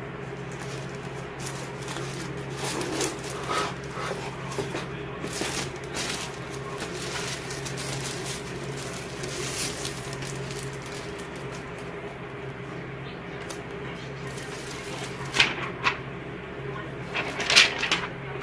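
Rustling and irregular clicks from a tablet's box and packaging being handled, over a steady low hum, with a few sharper clicks near the end.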